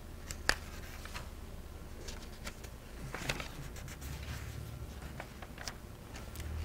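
Faint rustling and scattered light ticks of a paper sheet being handled, one sharper tick about half a second in and more rustling around three seconds in, over a steady low hum.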